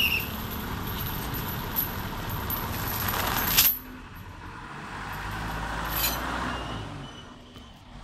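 Heavy road vehicle noise: a loud rush that builds and cuts off sharply a little past halfway, then a quieter low engine hum with a single click.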